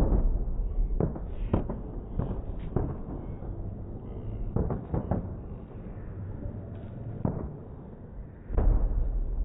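Fireworks display: a string of firework bangs, one every half second to two seconds, with a low rumble between them. The loudest bangs come at the start and near the end.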